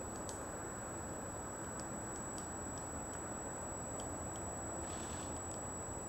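Black-backed woodpecker tapping and picking at tree bark: faint, irregular light ticks, about one a second, over a steady low background rumble.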